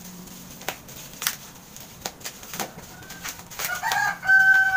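Plastic packaging crinkling and crackling in short snaps as a riflescope is unwrapped. In the last second or so a rooster crows, a wavering call that settles into one held note and is the loudest sound.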